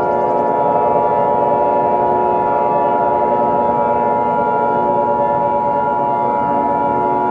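Emergency Alert System attention signal: a loud, steady two-tone alert tone, held unbroken, over a droning ambient music bed. It is the warning that an emergency alert broadcast is about to follow.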